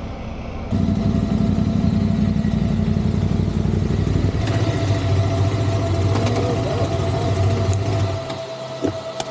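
KTM adventure motorcycle engines idling and ticking over at walking pace, a steady pulsing low engine note. The engine note drops away about eight seconds in.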